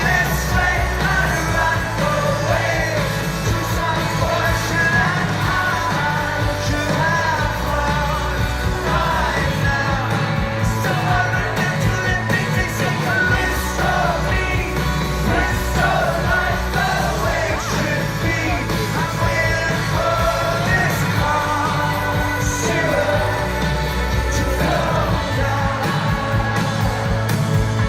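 Indie rock song played by a band: sung lead vocal over steady drums, bass and guitars, loud and continuous.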